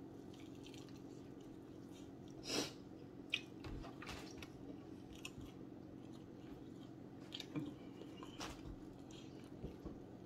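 A person chewing bone-in chicken wings, heard as scattered short wet smacks and clicks over a faint steady hum, with one louder brief noise about two and a half seconds in.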